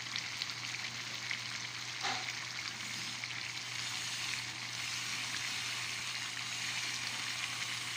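Soupy sardine and bihon rice-noodle dish simmering in a wok, a steady bubbling sizzle.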